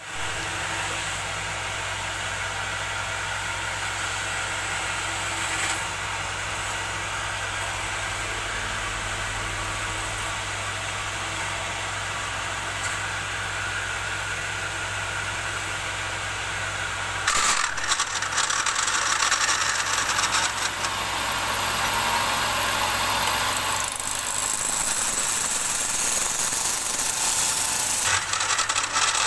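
Wood lathe running with a steady motor hum; about seventeen seconds in, a turning tool starts cutting the spinning wood and a louder, rough scraping takes over.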